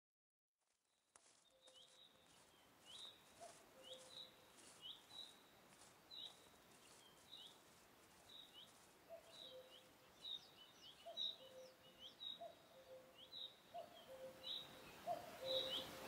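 Birds chirping over a faint hiss: short, high, falling chirps repeated every half second or so, with lower whistled notes beneath, starting about a second in.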